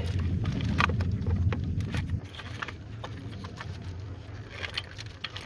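Plastic clips and wiring-harness connectors clicking and rustling as retaining clips are worked off the back of a fuse box. A low steady hum underneath stops about two seconds in.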